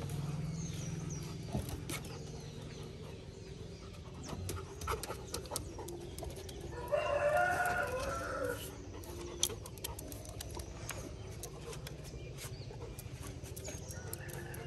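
A rooster crows once about seven seconds in, a call of several pitched parts lasting under two seconds. Under it there is a steady low hum and scattered light clicks.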